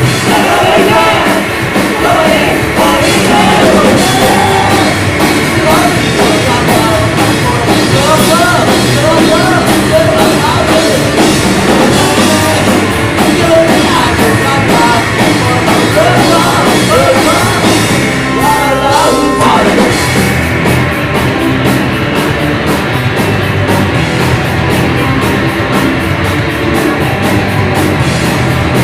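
Live rock band playing loudly with drums and electric guitars, a singer's voice over it for the first two-thirds, then an instrumental stretch with steady drum strokes.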